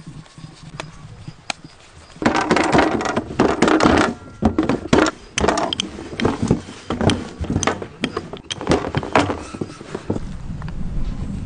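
Hands working and spreading maida dough on a floured steel table: a run of soft slaps, knocks and rubbing. It is sparse at first and gets busy from about two seconds in.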